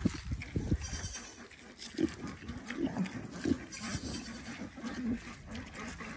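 Farm animals calling: a series of short, low calls spaced about a second apart, after a few low thumps in the first second.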